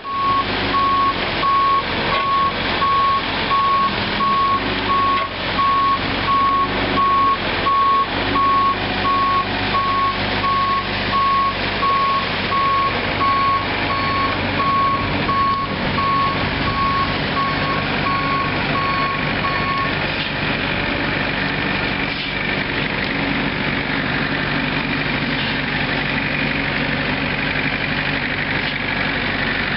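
An excavator's diesel engine runs steadily while a backup alarm beeps at a high, even pitch, a little more than once a second. The beeping stops about two-thirds of the way through, and the engine runs on alone.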